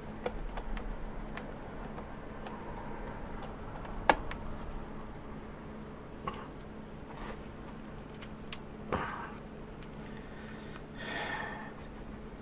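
Scattered small clicks and taps of hand tools on a plastic model kit, with one sharper click about four seconds in and a brief rustle near the end, over a faint steady hum.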